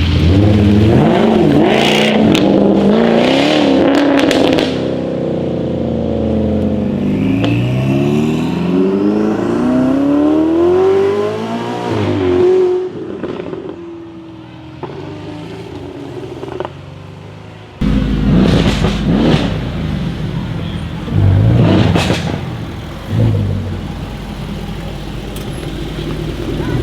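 Jaguar F-Type R's supercharged V8 through a Larini straight-pipe exhaust, revving hard and accelerating, with sharp crackles and bangs. Near the start the engine revs with a run of pops. It then pulls away with the pitch climbing in steps through the gears and fades. Loud revs return with abrupt cuts and bangs.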